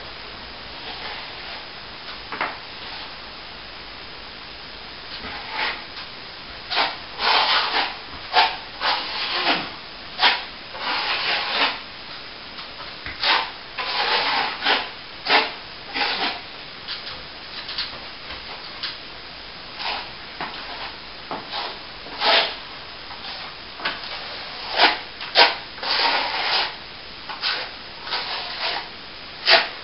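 Plaster wall being rubbed back by hand: irregular abrasive strokes, some short and some about a second long, separated by brief pauses.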